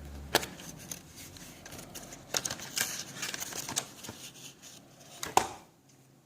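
Tea capsules and the capsule coffee machine being handled: rustling with three sharp clicks, the loudest near the end.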